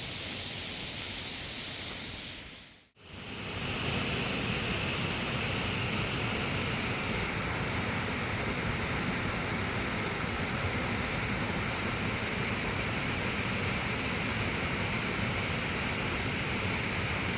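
Waterfall on Seneca Creek rushing steadily. The sound drops out briefly about three seconds in and comes back louder.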